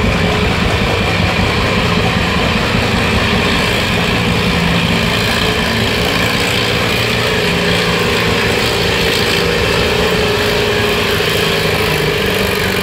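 Massey-Harris 55 tractor engine running steadily under heavy load while pulling a weight-transfer sled.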